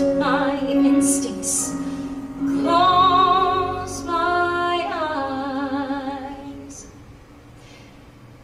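A woman singing a musical-theatre song live, holding long notes with vibrato over instrumental accompaniment. The music falls away to a quiet passage about six seconds in.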